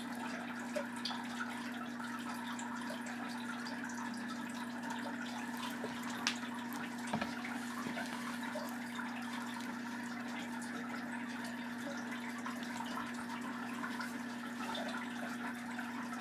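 Steady low hum with an even hiss beneath it, and a few faint clicks.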